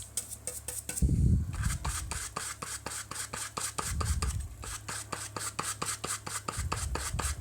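Paintbrush bristles scrubbing excess glue off a speaker's new foam surround in rapid, even back-and-forth strokes, about five a second, with a few dull low thumps in between.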